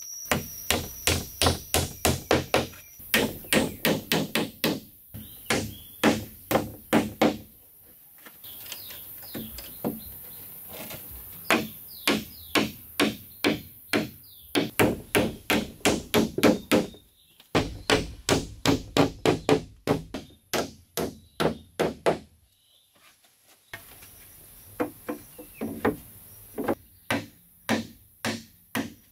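Hammer driving nails into wooden wall planks: runs of quick, sharp blows, about three or four a second, broken by short pauses.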